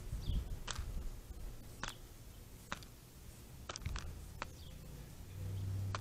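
American robin's bill striking a plastic dish as it picks out dried mealworms: a handful of sharp, irregular clicks.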